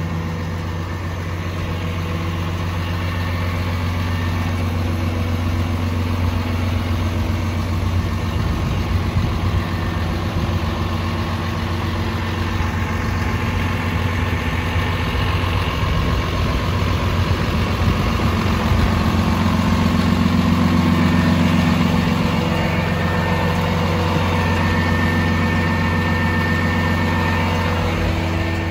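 The 300-horsepower PACCAR diesel engine of a 2019 Kenworth T270 rollback tow truck idling steadily.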